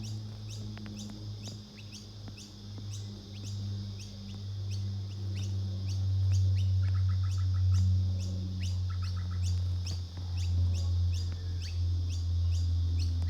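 Bird chirps repeated evenly, about two to three a second, with a few short rattling trills, over a steady low hum.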